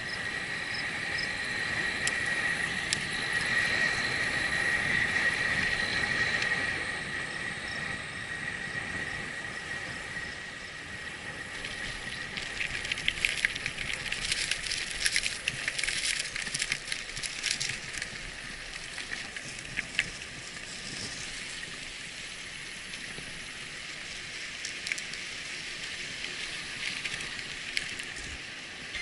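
Bicycle riding along a path: steady tyre and wind noise, with a steady high whine over the first several seconds. About halfway through, a run of sharp crackling clicks as the tyres roll over loose gravel, then a few scattered clicks as the bike slows.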